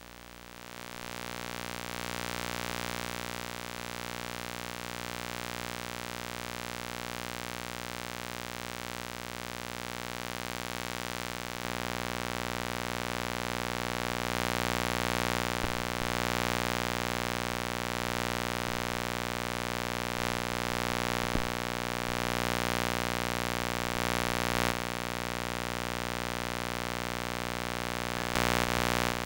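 Steady electrical hum and static hiss from a dead microphone feed, with no room sound coming through. The noise steps louder about twelve seconds in, and a couple of faint clicks sit on top of it.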